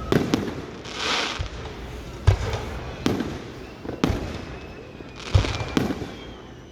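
Aerial fireworks bursting: a string of booms and sharp bangs, about seven in all, with a hissing burst about a second in.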